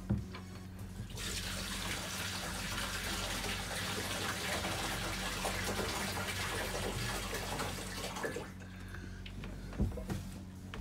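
Water poured from a plastic bucket into a boat's water tank through a floor filler opening, running steadily for about seven seconds starting about a second in. A knock comes at the start and another near the end.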